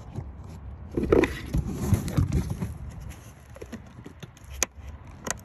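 A metal pick scraping and prying at the plastic lock pin of a relay's socket in a car fuse box, with rubbing and scraping from about a second in for a couple of seconds, then two sharp plastic clicks near the end.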